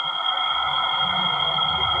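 Steady cabin noise inside the Orion spacecraft: an electronic whine made of several fixed high tones, over a low, uneven rumble.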